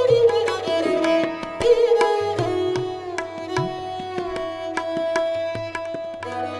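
Indian classical-style instrumental music: a sliding plucked-string melody over a steady drone, with hand-drum strokes.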